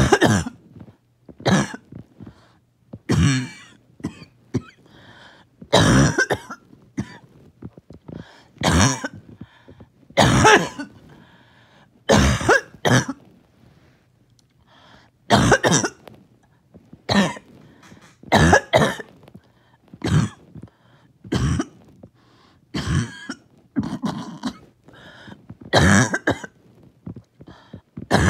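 A person in a long coughing fit, coughing again and again about every second or two, sometimes twice in quick succession, as they try to bring up mucus that won't come up.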